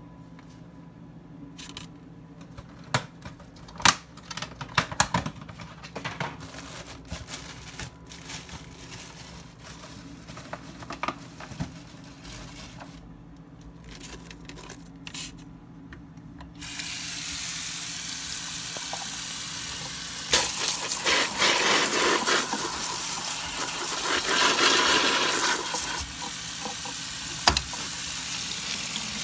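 Tomatoes and a head of iceberg lettuce set into a stainless mesh colander in a sink, with scattered light knocks and taps. About halfway through, the faucet comes on and water runs steadily. It splashes louder for several seconds as it pours over the produce while a hand rinses it.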